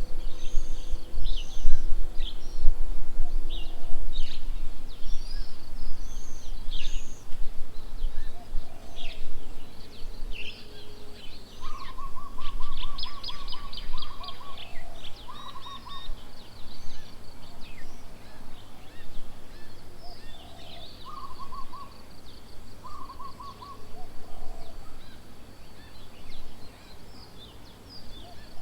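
Several wild birds calling and chirping: many short high calls, with a lower trill of fast repeated notes that comes several times. A low rumble in the first few seconds is louder than the birds.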